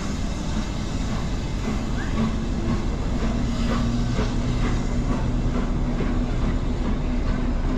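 Class 08 diesel shunter's engine running with a steady low hum as it rolls slowly along the track with coaches, a run of light wheel clicks over the rails in the middle.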